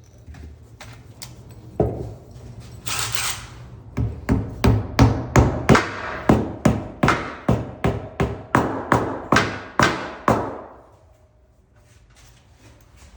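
A single thud, a brief hissing burst, then a long run of sharp, evenly spaced knocks, about three a second, like hammering or tapping, stopping short of the end.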